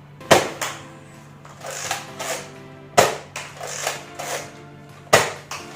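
Nerf Zombie Strike foam-dart blaster firing three shots, sharp clacks a little over two seconds apart, with softer handling sounds between shots. Background music plays steadily underneath.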